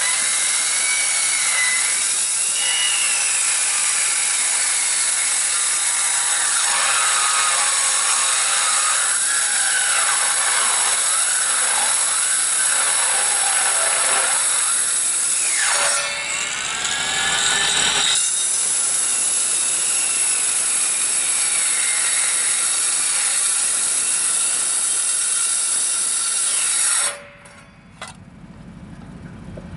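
Angle grinder with a cutoff wheel cutting through the steel wall of a propane tank: a loud, hissing grind whose whine rises and falls as the wheel is loaded. It lets up for a moment about halfway, resumes, then stops abruptly shortly before the end.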